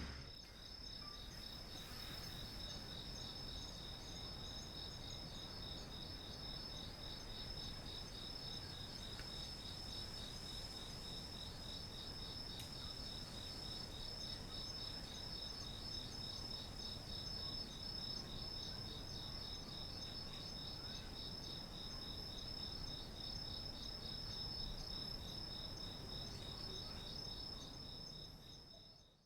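Crickets chirping, a steady, high-pitched trill with a fast, even pulse that fades out near the end.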